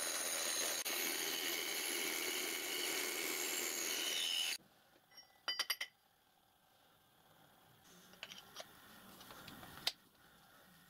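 Slitting saw on a milling machine cutting aluminium: a loud, steady cutting noise with several high ringing tones, which stops suddenly about four and a half seconds in. Then comes a quick run of sharp metallic clinks, followed by light knocks as the cut block is handled.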